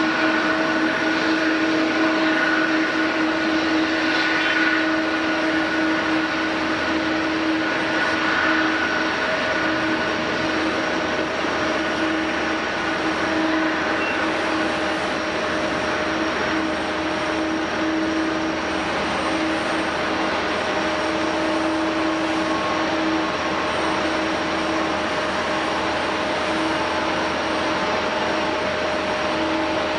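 Jet airliner engines running steadily: a continuous rush with a few held humming tones, little change in level throughout.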